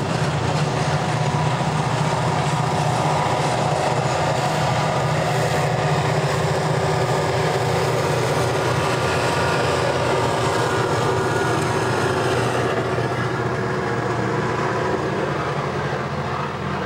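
Norfolk Southern diesel helper locomotives passing close by, led by unit 3345: a loud, steady diesel engine drone over the train's rumble, turning duller about thirteen seconds in.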